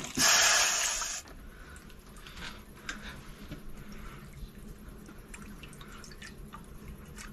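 Water poured briefly, a hissing stream lasting about a second, followed by faint drips and small ticks.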